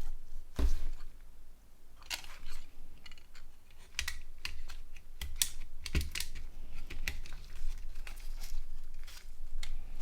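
Small plastic parts of a Nokia N80 slider phone clicking and tapping as they are handled and pressed together during reassembly: irregular sharp clicks throughout.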